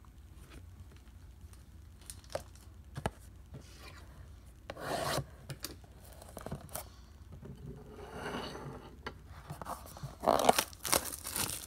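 Cardboard trading-card blaster box handled and its plastic shrink wrap picked at and peeled: scattered small clicks and rubs, then a louder burst of crinkling and tearing about ten seconds in.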